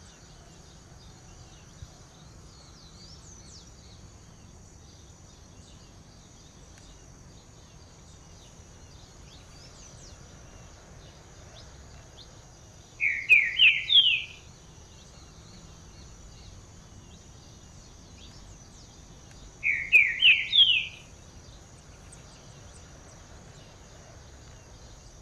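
Green-winged saltator (trinca-ferro) singing twice, about six seconds apart: each phrase is four quick loud notes climbing in pitch. Under it is a faint steady outdoor background with a thin high tone and scattered faint chirps.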